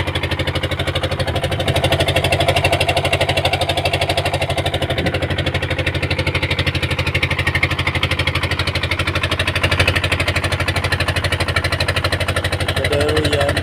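An engine running steadily at an even speed, with a rapid, regular pulse.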